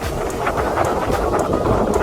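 Wind buffeting the microphone: a steady, loud, rumbling rush.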